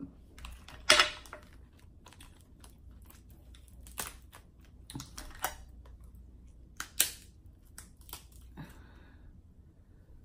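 Cooked crab leg shells cracking and snapping as they are broken apart by hand: scattered sharp cracks, the loudest about a second in and another around seven seconds, with smaller ticks of shell between.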